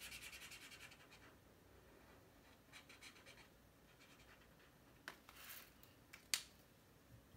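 Felt-tip washable marker scratching in fast, even strokes on watercolour paper, fading out about a second in. Then a few faint scuffs and one sharp click.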